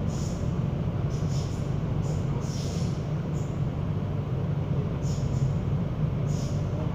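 Interior running noise of an MTR K-stock metro train: a steady low rumble from the moving car, with brief high hisses coming and going.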